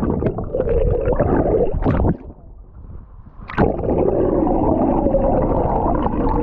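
Muffled rushing and gurgling of river water around a camera held underwater beside a moving canoe. A splash about two seconds in is followed by a quieter stretch, and a second splash about three and a half seconds in is followed by the muffled rush again.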